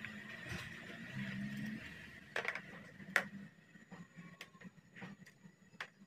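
A screwdriver working the screws of a car carburetor, with sharp metal clicks and small clinks of screws and parts against the carburetor body in a plastic basin. A steady low hum fades out about two seconds in.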